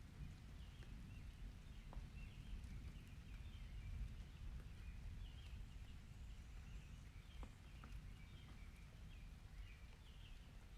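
Quiet storm ambience: a low, steady rumble with faint, irregular chirping above it and a few scattered drip-like clicks.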